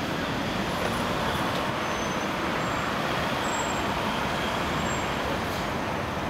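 Road traffic on the street: a car driving past, steady tyre and engine noise, a little fuller in the middle of the stretch.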